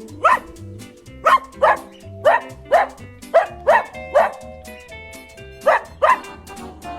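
A dog barking about ten times, mostly in quick pairs, over light background music.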